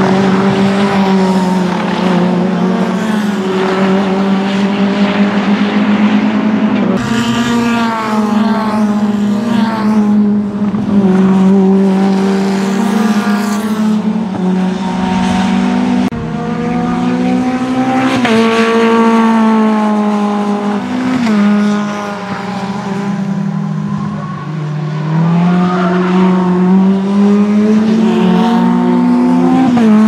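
Mitjet race cars' Renault 2.0-litre four-cylinder engines at racing speed, one car after another in short passes. The engine note climbs under acceleration and drops at each gear change or lift.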